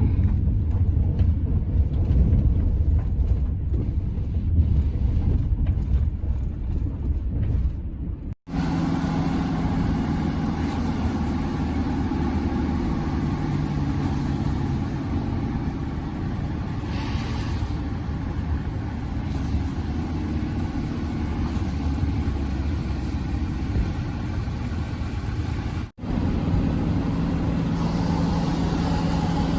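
A motor vehicle's engine and road noise heard from inside: a low rumble at first, then, after abrupt cuts about 8 and 26 seconds in, a steady engine hum.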